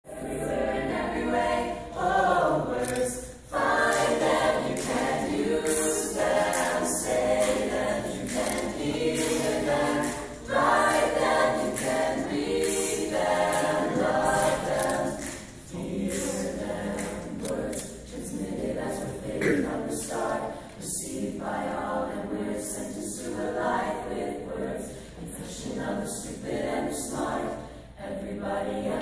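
Mixed choir of men's and women's voices singing a cappella.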